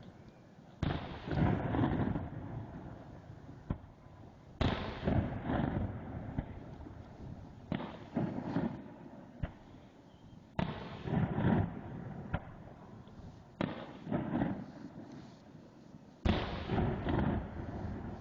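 Aerial fireworks shells bursting: a series of sharp booms a few seconds apart, each followed by a rumbling echo off the surrounding canyon walls.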